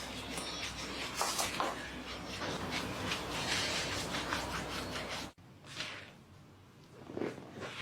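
Hands rubbing and sliding over skin during a back massage: a continuous rubbing sound that cuts off suddenly about five seconds in, followed by a few quieter swishes.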